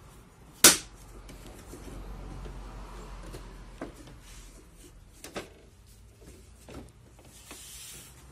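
Plastic top cover of an Epson LQ-2190 dot matrix printer being unlatched and lifted off by hand. There is one loud sharp click less than a second in, then a few quieter clicks and knocks.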